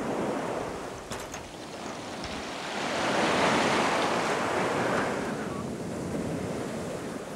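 Surf washing onto a sandy beach, with wind on the microphone; a wave swells up about three seconds in and dies away. A few faint clicks about a second in.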